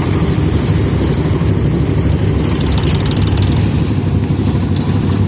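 Tractor's diesel engine running steadily under a concrete-mixer loader bucket, with a fast high clatter over it that fades out about three seconds in.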